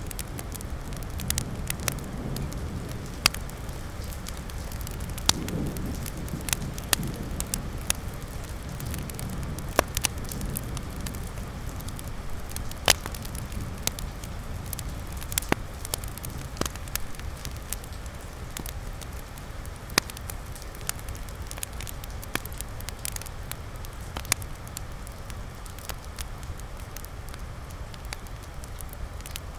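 Wood fire crackling in a fireplace: irregular sharp pops and snaps, several louder ones scattered through, over a steady low rumble of the burning fire.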